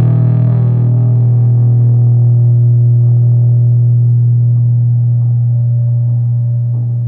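Electric guitar drone through effects pedals and Orange amplifier stacks: a loud, sustained low tone with a brighter distorted layer that fades out about a second in, the drone beginning to die away near the end.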